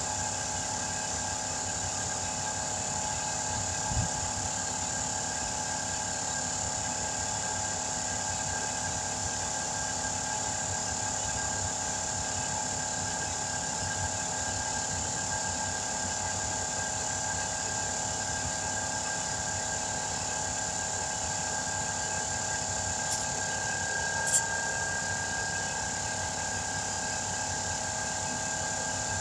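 Steady machine hum with several constant tones, like a motor running without change, with a couple of faint knocks, one about four seconds in and two near the end.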